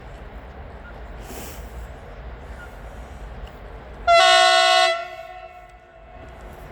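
Electric locomotive's horn, HŽ class 1141, sounding one short blast of about a second. It is a chord of several tones and echoes briefly as it dies away.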